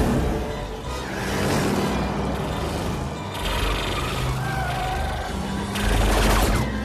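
Action-film soundtrack: dramatic score mixed with car engine sound effects, with a sudden loud blast of noise near the end.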